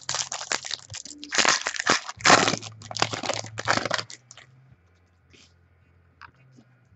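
Foil wrapper of a trading-card pack being torn open and crinkled by hand for about four seconds, then only faint light ticks as the cards are handled.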